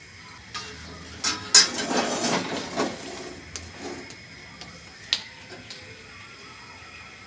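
Metal clattering and scraping of an iron tawa and metal tongs being handled on a gas stove while cooking roti, loudest a little over a second in, with a single sharp clink about five seconds in.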